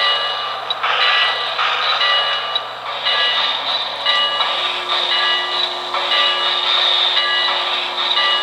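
O-gauge model New York Central Hudson steam locomotive's electronic sound system: a steady steam hiss with a bell ringing about twice a second.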